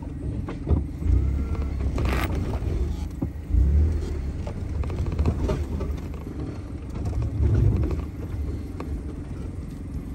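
Off-road vehicle's engine running at low speed on a dirt trail, heard from on board, with heavier low rumbles about a second in, near four seconds and near seven and a half seconds.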